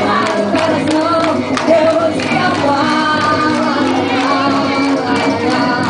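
Forró-style festa junina music with singing, played loud for a quadrilha dance, with a regular percussion beat.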